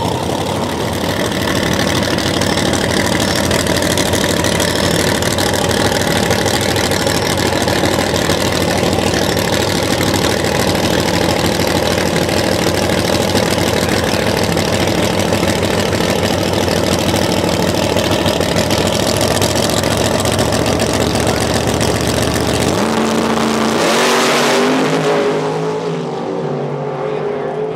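Top Sportsman drag race car engines running loudly and steadily. About 23 seconds in the engine sound changes, with a brief louder rush a second later, and then it settles lower.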